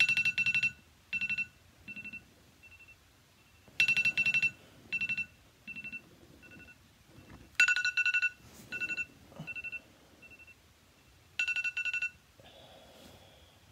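Smartphone alarm ringing: a loud burst of rapid high electronic beeps followed by fainter echoing repeats, the pattern coming round about every four seconds, four times. It stops just after twelve seconds, when the phone is picked up and the alarm is turned off; softer rustling follows.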